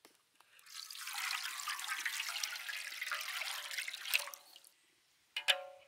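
Water boiling hard in a steel wok, a dense bubbling noise that stops abruptly about four and a half seconds in. Near the end comes a short metallic clink with a brief ring.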